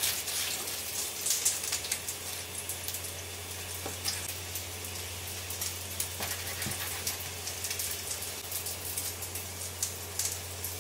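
Steady crackling hiss over a low steady hum, cutting off abruptly at the very end.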